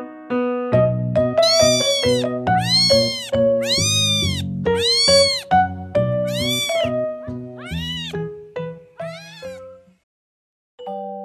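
Kitten meowing over and over, about eight high mews that each rise and fall in pitch, roughly one a second, over background piano music. The sound cuts out briefly near the end.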